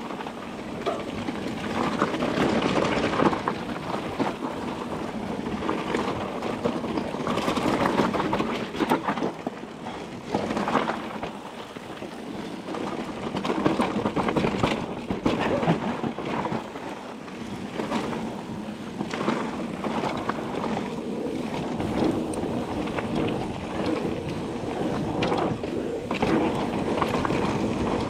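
Mountain bike (a Nukeproof Mega 275) riding fast down a rough dirt jump trail. There is a continuous rushing of tyres and air, broken by frequent knocks and rattles as the bike hits bumps, landings and roots; the level swells and dips along the run.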